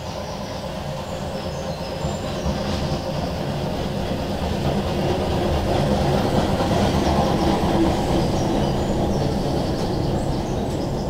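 Narrow-gauge park railway train, a small diesel locomotive pulling open passenger cars, passing close by on the track. It grows louder to a peak a little past halfway and then eases off as the cars roll past.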